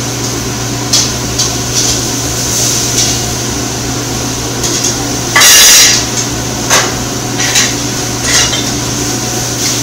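Commercial kitchen work: metal utensils knocking and clinking against pans and a cooking surface, a scattered series of sharp knocks, over a steady hum from the ventilation hood. About five and a half seconds in comes one loud burst of noise, about half a second long.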